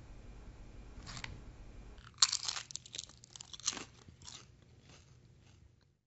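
Crisp microwave-baked potato chip crunching as it is bitten and chewed. A faint crunch comes about a second in, then a sharp bite a little after two seconds, and a run of chewing crunches that fade out.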